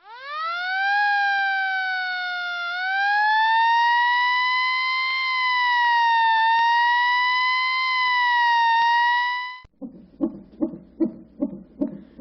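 A siren winds up from a low pitch to a high wail within the first second and holds there, wavering slowly up and down. It cuts off abruptly near the end. A rapid low pulsing, about two to three beats a second, follows.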